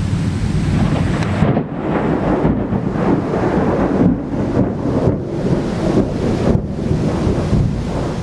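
Torrential downpour with gusting wind buffeting the microphone, a loud, continuous rush with a heavy low rumble.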